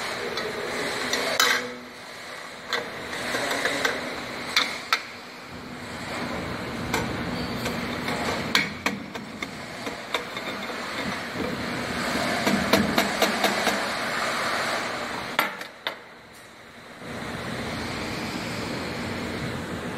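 Stainless-steel inner measuring cups of a volumetric cup filler being taken out and fitted back into the cup disc: scattered sharp metal clinks and knocks over a steady background noise.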